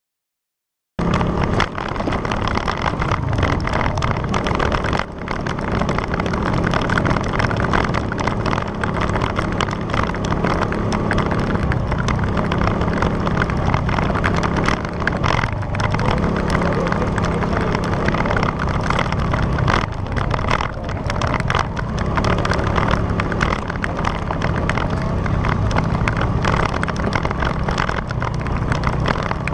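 Motorcycle engine running steadily, with a constant rushing noise over it. The sound cuts in abruptly about a second in.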